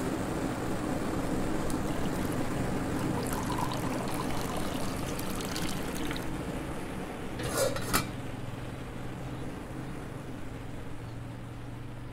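Milky tea poured from a metal pot into a small ceramic cup, a steady trickle of liquid, over a low steady hum. A brief, louder clatter comes about eight seconds in.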